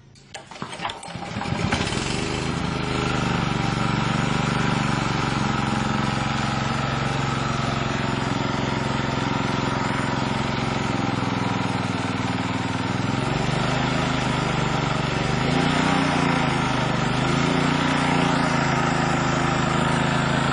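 Small Alkom engine starting about a second and a half in after a few brief catches, then running steadily. Its speed wavers slightly later on.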